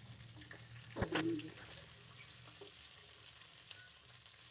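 Beetroot strips and green peas sizzling as they fry in a pan while being stirred with a wooden spatula, with a few light knocks of the spatula against the pan.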